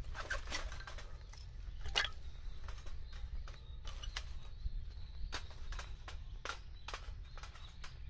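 Split kindling sticks clattering and knocking against each other and the fire stand as they are handled and laid, a string of irregular sharp knocks over a steady low rumble.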